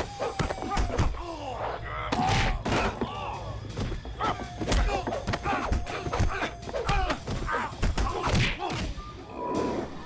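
Kung fu film fight sound effects: a fast run of punch and kick impact thuds, mixed with the fighters' shouts and grunts.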